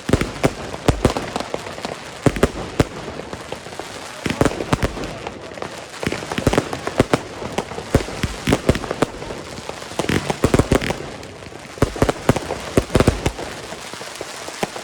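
Fireworks cake batteries (Funke Goldcracker Palmen) firing, with bangs repeated throughout, in dense clusters, and a crackling of gold cracker stars between them.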